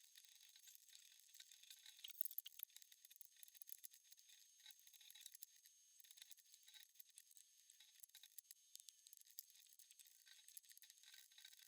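Faint, irregular small clicks and ticks from close hand work on a marquetry piece, with a brief cluster of louder clicks about two seconds in.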